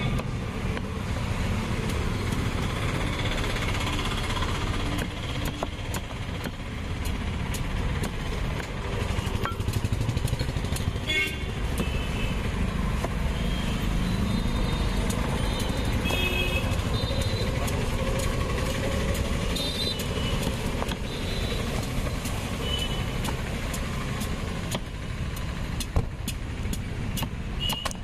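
Steady rumble of passing road traffic with motorcycle engines, and sharp taps of a knife striking a wooden chopping board as raw jackfruit is peeled and cut.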